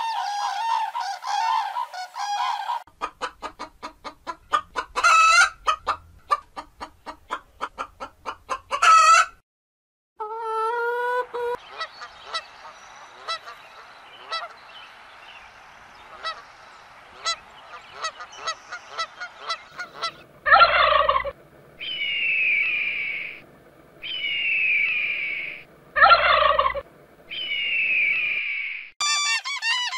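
Several kinds of bird calling one after another. It starts with runs of rapid repeated calls, then dense overlapping calling with Canada geese honking. Near the end comes a series of drawn-out calls that fall in pitch, about a second each, alternating with short loud calls.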